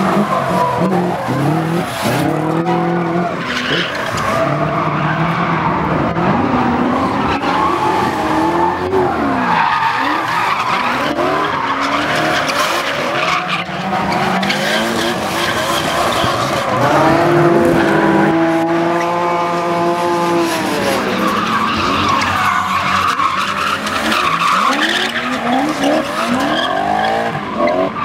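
Drift cars sliding sideways, their engines revving up and down hard over the screech of spinning tyres. About two-thirds of the way through, one engine holds high revs steadily for a few seconds before dropping.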